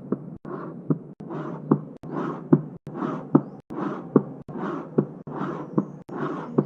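Auscultated heart sounds with the early diastolic murmur of aortic regurgitation: a regular beat a little over once a second, each with a sharp heart-sound click followed by a high-pitched decrescendo murmur that begins at the second heart sound (A2).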